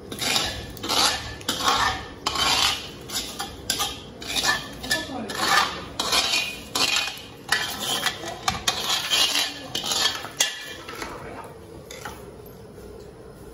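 A utensil scraping and clinking against a cooking pot in quick repeated strokes, about two a second, stopping about twelve seconds in.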